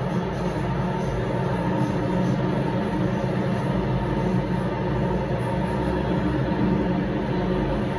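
MTR M-train electric multiple unit running steadily, heard from inside the passenger car: a continuous noise of wheels on rail and traction equipment, with a steady hum.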